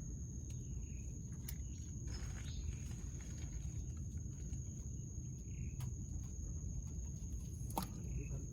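Outdoor ambience with a steady high-pitched insect drone and a low rumble underneath. Short chirps come a few times, with a few sharp clicks or knocks, the loudest near the end.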